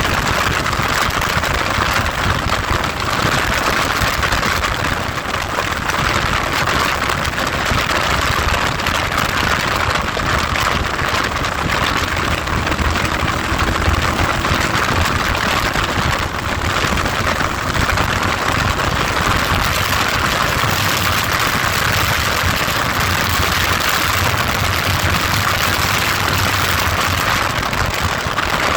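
Heavy wind noise buffeting the microphone of a moving vehicle, a loud steady rushing, with a low engine rumble underneath.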